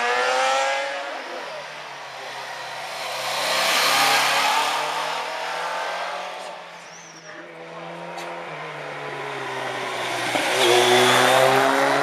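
Rally motorcycles on a twisty road: one bike's engine note drops and fades as it rides away, then another motorcycle approaches, its engine pitch rising as it accelerates and loudest near the end.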